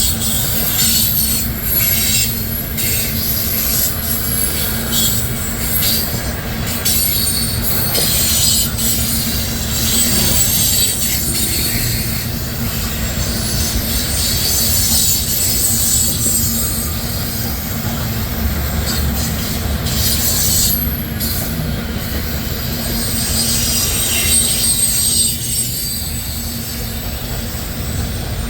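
Freight cars of a long CN train rolling past on the rails: a steady low rumble of wheels with high-pitched wheel squeal rising and falling throughout.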